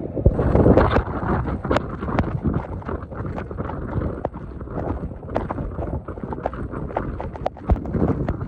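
Storm wind buffeting the microphone, a steady low rumble, with irregular sharp clicks and knocks throughout.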